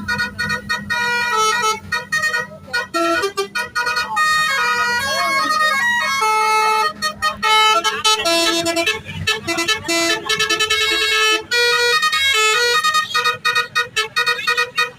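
Indonesian 'telolet' multi-tone bus horn playing a quick tune of short notes that step from pitch to pitch, with a few brief breaks.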